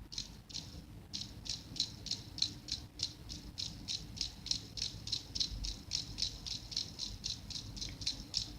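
Rhythmic shaken or hissed chuffing at about four strokes a second, like a steam engine running along.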